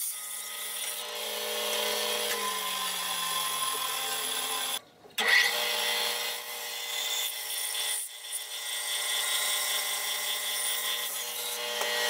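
Bandsaw running and cutting through a green hackberry log: a steady motor hum under the hiss of the blade in the wood. The motor's note drops a little at times, and the sound breaks off briefly about five seconds in.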